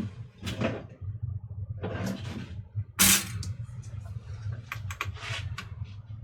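Clicks, rattles and a sharp knock about three seconds in from an opened-up toaster's mechanism being handled and worked, over a steady low hum.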